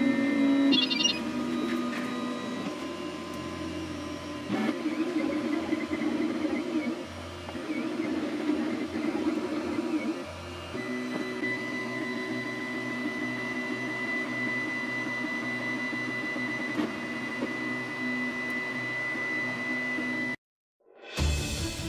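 FlashForge Creator X 3D printer printing: its stepper motors whir and buzz, with the pitch shifting as the print head and bed move. About halfway through a steady high whine joins in. Near the end the sound cuts off abruptly and music begins.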